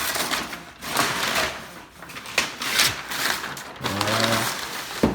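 Wrapping paper being torn and crumpled off a gift in a run of rustling tears, with a sharp click near the end.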